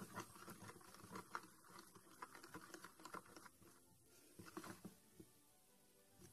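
Faint, irregular clicking and tapping of a plastic spoon stirring slime in a plastic container as the gel thickens, dying away about five seconds in.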